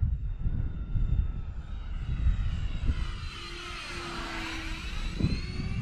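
Radio-controlled model Airbus A320 jet flying a pass overhead, its high engine whine sweeping down and back up as it goes by about four seconds in. Wind buffets the microphone with a low rumble.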